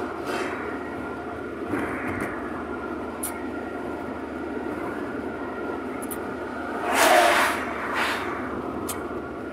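Steady road and engine noise of a car driving at speed on a country road, heard from inside the cabin. A brief louder burst of noise comes about seven seconds in, with a smaller one a second later.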